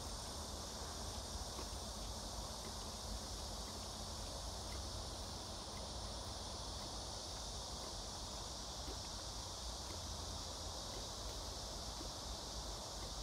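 Steady, unbroken high-pitched drone of an insect chorus, over a low steady rumble.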